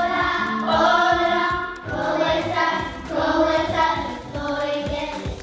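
A group of children singing over backing music, in long held notes.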